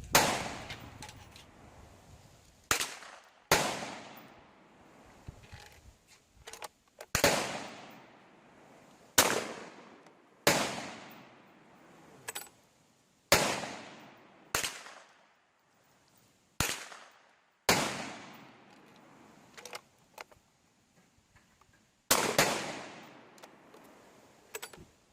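A string of gunshots, about ten sharp reports a second to several seconds apart. Each trails off in a long echo, and a few fainter cracks fall between them.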